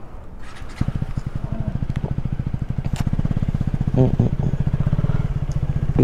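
Motorcycle engine starting about a second in, then idling with an even low beat. A short voice is heard about four seconds in.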